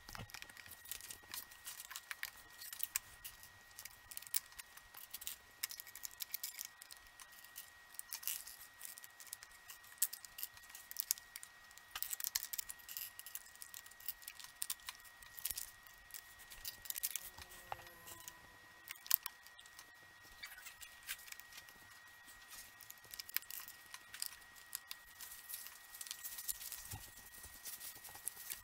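Small plastic LEGO pieces clicking and rattling as they are handled and pressed together, with many short sharp clicks throughout.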